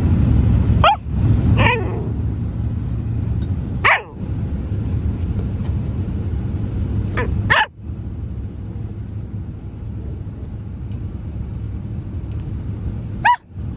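Rottweiler puppy giving about five short, high barks spaced a few seconds apart, over a steady low rumble.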